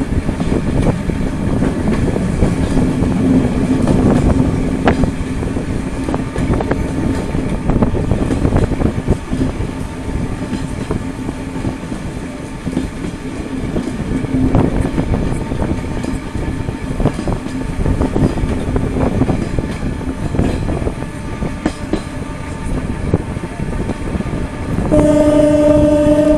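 Renfe Serie 442 electric train running along the line: a steady rumble with clatter from the wheels on the rails and a steady hum. Near the end it sounds its horn, one long blast.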